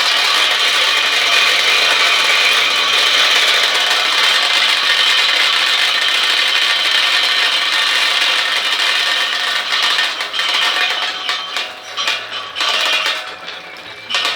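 Candlenut-cracking machine cracking a poured-in batch of candlenuts, the shells clattering through it in a dense, loud rattle. About ten seconds in, the rattle thins to scattered clicks and knocks as the batch runs through.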